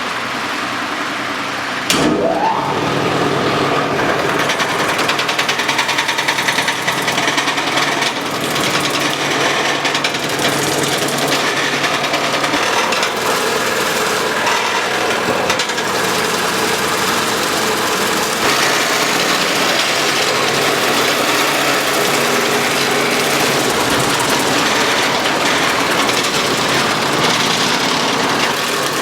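Wood shaving machine running steadily with a dense mechanical clatter, louder from about two seconds in.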